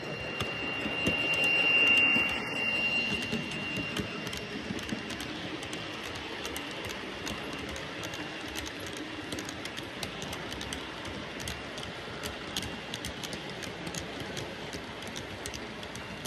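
Model freight train running past on model railway track. A high steady tone peaks about two seconds in as the diesel locomotive passes closest, then the wagons roll by with quick, irregular clicking of wheels over the rail joints.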